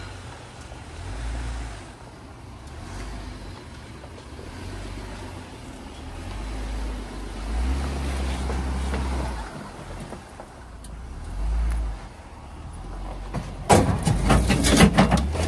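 A vehicle driving with a low, uneven rumble, then a burst of loud knocks and rattles near the end.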